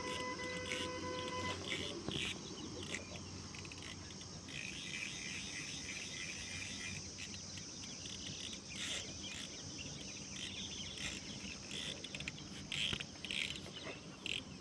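Insects chirring steadily, with scattered short bird-like chirps. A held tone, carried over from music, stops about a second and a half in.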